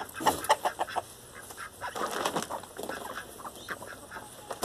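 Chickens clucking around the feet, in short irregular calls, with the rustle of a woven feed bag being picked up.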